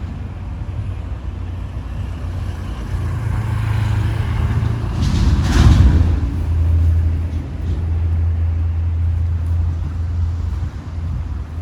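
Road traffic: a continuous low engine rumble, with one vehicle rushing past close by about five to six seconds in, followed by a steady low engine drone. No bus horn sounds.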